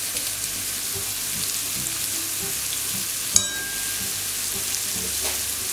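Diced poultry breast and chopped onion sizzling steadily in oil in a frying pan. One sharp tap a little past halfway.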